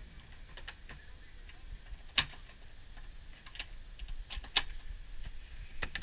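Scattered clicks and knocks of a trifold hard tonneau cover on a pickup bed being unlatched and folded up, the loudest knock about two seconds in.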